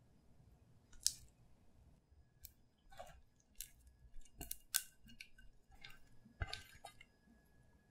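Thick, sticky tapioca-starch paste sliding and plopping out of a bowl into a ceramic plate. It makes a string of scattered sharp wet clicks and smacks, with a cluster of them near the end as it is scraped free of the bowl.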